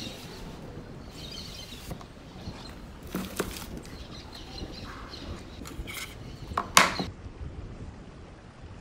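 Handling of an Apple Pencil's cardboard box: the box sliding out of its sleeve and being opened, with soft scraping and rustling and a few light clicks. One sharper tap stands out about two-thirds of the way through.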